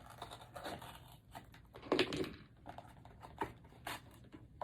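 Plastic blind-bag packaging being torn open and crinkled by hand, an irregular scatter of rustles and crackles.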